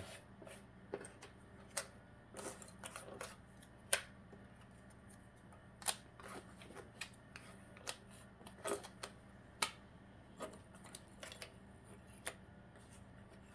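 Small cut-out letters being picked up and set down on a work surface: scattered light clicks and taps, about one every second or so, over a faint steady hum.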